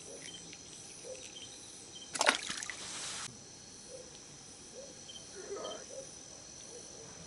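Crickets and other night insects chirping steadily, with a sudden loud noisy burst about two seconds in that lasts about a second.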